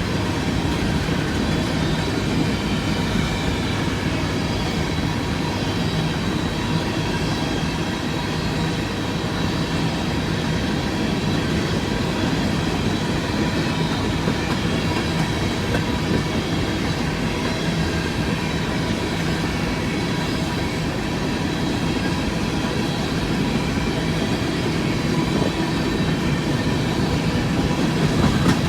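BNSF empty coal train rolling past at steady speed: a continuous rumble and wheel-on-rail noise, with faint steady ringing tones over it.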